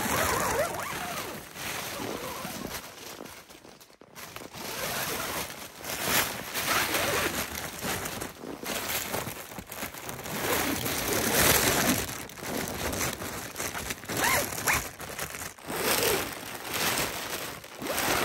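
Tent door zippers being worked and the tent's fabric rustling as it is handled, in irregular bursts.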